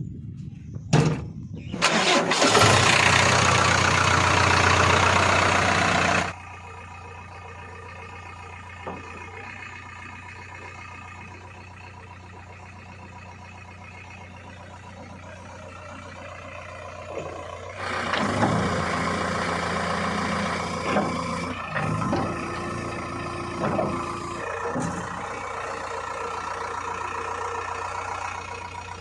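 Heavy diesel engine starting with a loud burst lasting a few seconds, then idling steadily with a low hum. About 18 seconds in it is revved up under load for several seconds, with pitch changes, before settling back to a steady run.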